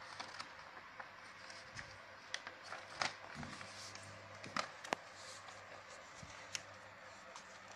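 A sheet of paper being folded and creased by hand into a paper airplane: faint rustling, with sharp crinkles and taps as the folds are pressed down, the loudest a few around three to five seconds in and one more near six and a half seconds.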